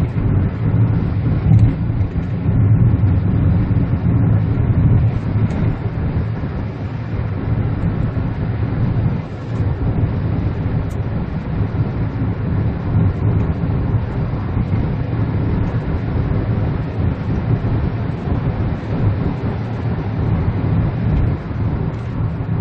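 Steady low road and engine noise inside the cabin of a 2013 Kia Ray with a turbocharged petrol engine, cruising at highway speed.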